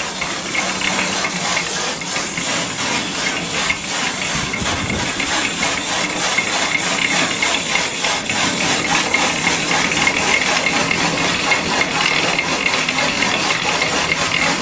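A machine running with a fast, even beat of about four strokes a second over a hissing noise, growing slowly louder.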